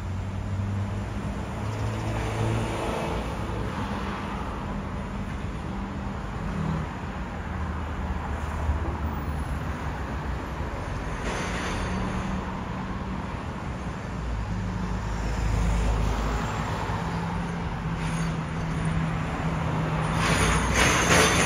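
Road traffic: vehicles passing with a steady engine hum and tyre noise, growing louder near the end.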